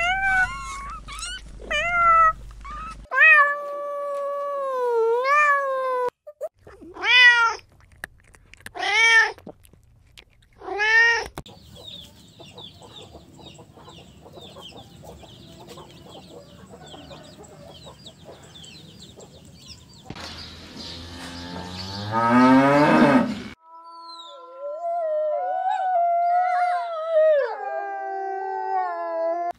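A kitten meowing, a run of short rising-and-falling meows through the first eleven seconds. Then chickens calling, faint at first, with a loud call lasting about three seconds. Last, a wolf howling: long wavering notes that drop in pitch near the end.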